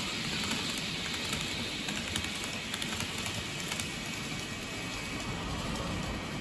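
N gauge model train rolling along the layout track: a steady rushing noise with a few small, scattered clicks.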